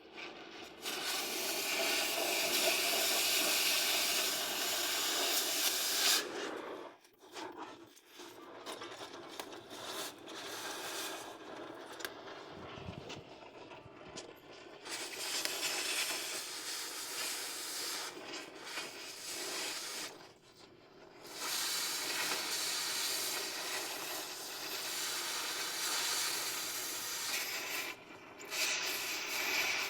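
Welding in runs of a few seconds each: a steady, crackling hiss that stops and starts several times.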